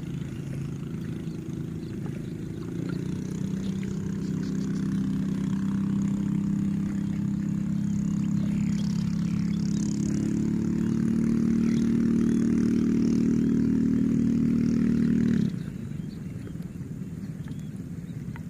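An engine running steadily, getting louder over the first few seconds, then cutting off abruptly about fifteen seconds in.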